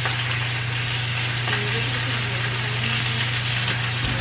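Chicken sizzling steadily in a frying pan, over a steady low hum.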